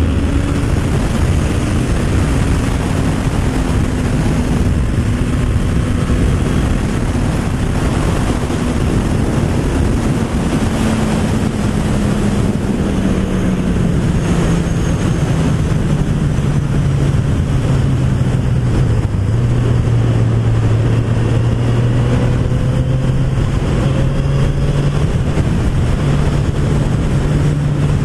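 Motorcycle engine running while riding, under a loud rush of wind on the microphone. Its pitch holds steady, sinks slowly through the middle as the bike slows, then levels off and rises a little near the end.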